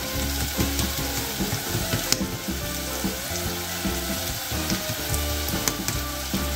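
Diced onion frying in hot oil in a stainless steel pot: a steady sizzle, with a couple of sharp pops about two seconds in and near the end.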